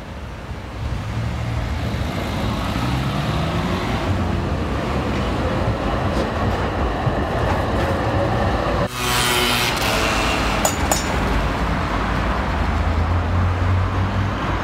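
City tram running past on its rails, its electric motor whine rising as it gets under way. About nine seconds in the sound changes abruptly to street traffic, beginning with a short hissing rush.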